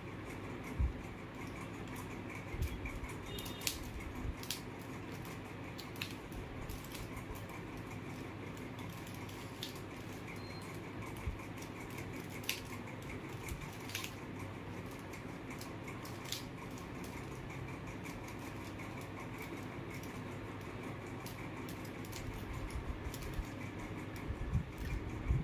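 Plastic mirror cube being turned by hand: quick, light clicks of its layers snapping round, scattered irregularly throughout, with a few soft knocks of handling, more of them near the end, over a steady background hiss.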